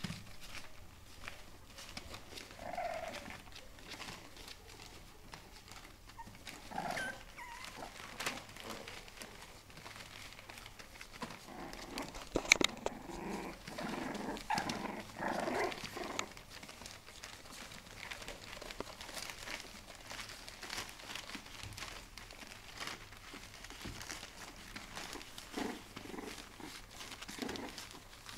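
Four-week-old bulldog puppies play-fighting: short puppy growls and yaps, most of them in a cluster about halfway through, over the crinkle and rustle of newspaper under their paws. There is one sharp tap about halfway through.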